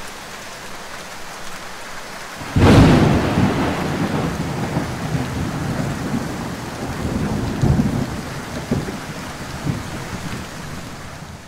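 Thunderstorm sound effect: steady rain, then a sudden loud thunderclap about two and a half seconds in that rolls off into a long rumble, with a couple of fainter rumbles later.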